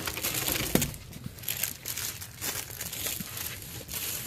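Clear plastic sleeves on wallets crinkling in irregular bursts as the wallets are picked up and laid down on a table, with a couple of light knocks in the first second.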